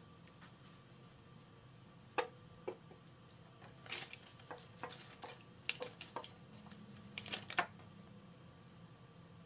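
Scattered light taps, knocks and clicks of hands handling craft pieces on a tabletop, including a paper-covered pumpkin cutout being stood up on the table, over a faint steady hum.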